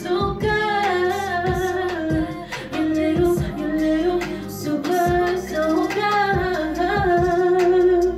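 A woman singing into a microphone, with long held notes, over backing music with a steady drum beat.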